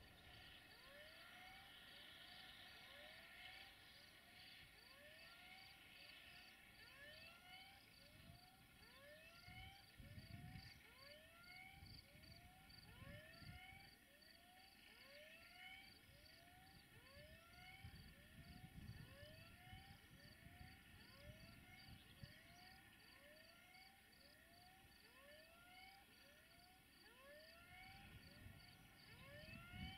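Faint outdoor animal calls: a short call that rises in pitch, repeated about once a second, over a steady faint high-pitched chirping, with a low rumble now and then.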